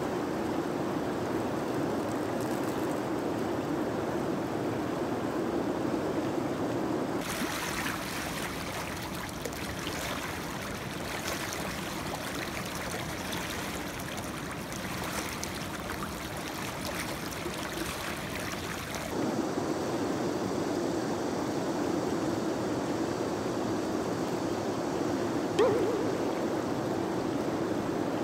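Steady rush of water over shallow river rapids. For about twelve seconds in the middle it turns brighter and hissier. A short sharp sound stands out near the end.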